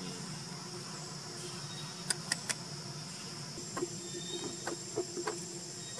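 Steady high-pitched chorus of forest insects, with three sharp clicks about two seconds in and a few softer ticks later.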